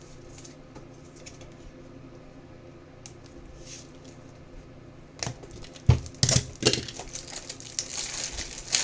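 Trading cards and their packaging being handled: quiet at first, then from about five seconds in a run of clicks and rustles, with plastic or foil wrapper crinkling near the end.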